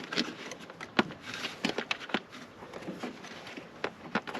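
Clamps on a Mercedes W201 190D's air filter housing being fastened by hand: a series of sharp clicks and knocks with handling noise between, as the housing cover is clamped down tight.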